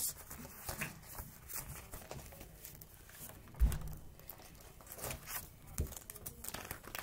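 Rustling and handling noise as someone moves close to the microphone, with a dull thump about three and a half seconds in and a softer one about two seconds later.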